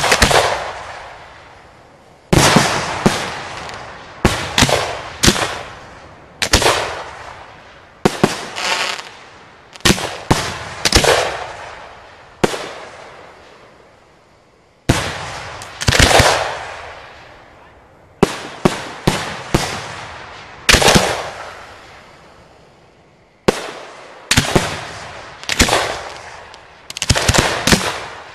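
Aerial firework shells fired from mortars in quick succession. About two dozen sharp booms from the launches and the shell bursts come in clusters with short lulls between, and each one fades away slowly.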